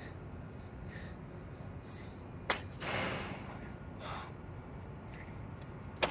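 A man breathing hard from exertion mid-set of burpees, with short gasping breaths about once a second and one long heavy exhale about three seconds in. Two sharp slaps, about two and a half seconds in and again at the end.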